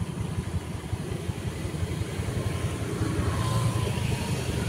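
Motorbike engine running as it passes on the street close by, getting louder about three seconds in.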